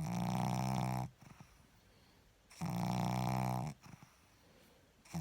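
Pug snoring in its sleep: low, steadily pitched snores about a second long, one roughly every two and a half seconds, with near quiet between them. The third snore begins at the very end.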